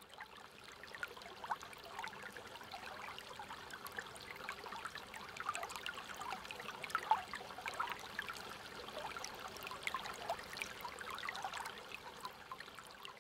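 Water trickling and bubbling like a small stream, fairly faint, with many small bubbling plinks.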